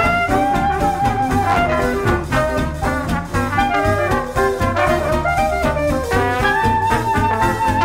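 Background instrumental music: a melody line moving over a steady beat and bass.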